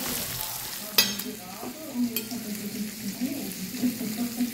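Minced-meat patties sizzling in hot oil on a raclette grill plate, a steady spattering hiss. A sharp click about a second in, and a low voice in the background in the second half.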